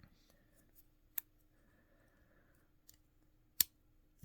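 Leatherman Bolster multitool being handled: a few sharp clicks, one about a second in and a louder one later, with a faint scrape between them.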